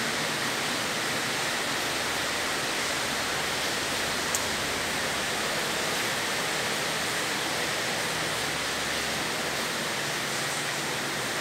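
Steady rain outside, heard from indoors as an even hiss, with a single small click about four seconds in.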